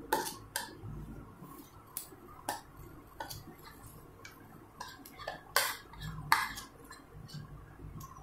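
Bowl and spatula clicking and knocking against a nonstick pan as mashed chana dal is tipped in: a scatter of light, irregular clicks, the two loudest a little past halfway.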